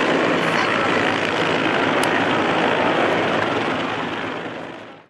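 Aircraft engines of a formation flypast: a steady rushing drone with a low hum underneath, fading away near the end.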